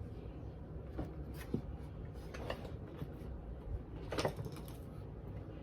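Light handling sounds of small items and packaging: a few soft clicks and short rustles over a low steady room hum.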